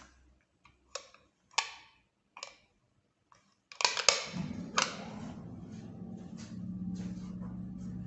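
Old Soviet KMZ passenger lift: a few separate clicks, then about four seconds in a loud cluster of clacks as the lift starts, followed by the steady hum of its two-speed AC hoist motor as the car travels.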